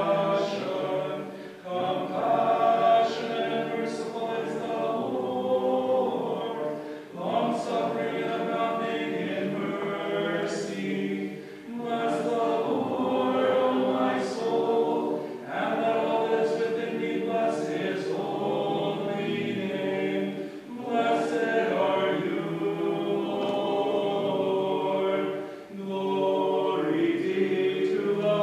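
Choir singing an unaccompanied Byzantine-rite liturgical chant, in sustained phrases of a few seconds each with short breaks between them.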